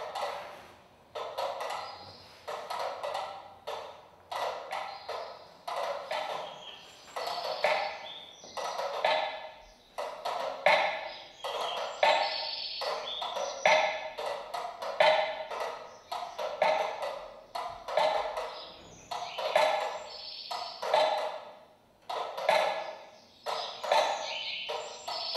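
Several mechanical metronomes ticking out of step with one another, a dense, uneven clatter of hard wooden clicks.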